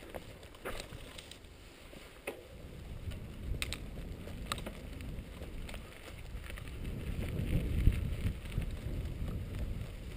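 Mountain bike riding over a rough grass and dirt track: a low rumble of tyres and wind that builds to its loudest about eight seconds in, with scattered sharp clicks and rattles from the bike in the first few seconds.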